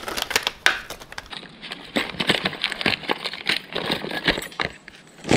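Crinkling plastic lure packaging and small clicks and rattles of tackle handled over a plastic tackle box, with a sharper click near the end.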